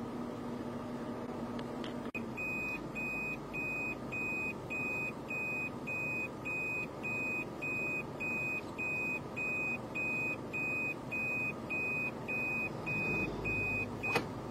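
Electronic warning beeper giving a regular run of short, high beeps, about two a second, over a steady hum. A click about two seconds in comes just before the beeps start, and another click near the end as they stop.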